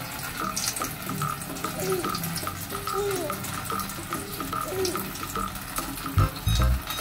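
A thin stream of water jetting from a squeezed plastic bag and splashing steadily into a shallow metal tray of water.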